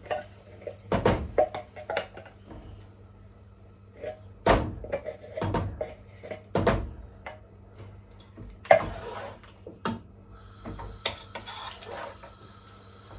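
Chopped tomatoes being knocked and scraped out of a metal tin into a saucepan with a wooden spoon, then stirred in the pot: a series of irregular knocks and taps, the sharpest about two-thirds of the way in.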